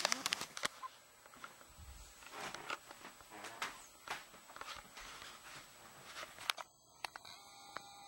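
Camera handling noise: a few sharp clicks, then irregular rustling and scuffing as the camera is moved about. It stops abruptly about six and a half seconds in, leaving a faint steady hum.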